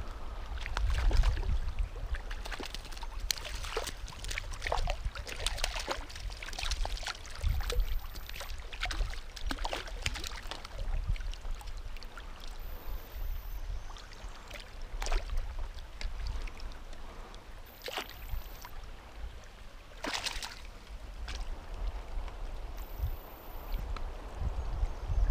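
Water splashing in irregular bursts as a hooked brown trout thrashes at the surface and is drawn into a landing net, with a strong splash about twenty seconds in, over the steady wash of the river. A low rumble sits on the microphone throughout.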